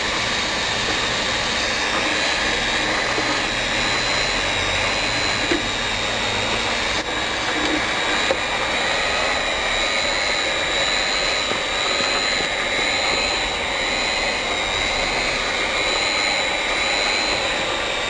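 Hot-air PVC banner welding machine running as it travels along a weld seam: a steady blowing rush from its heat-gun blower with a thin, steady high whine, and a couple of small ticks.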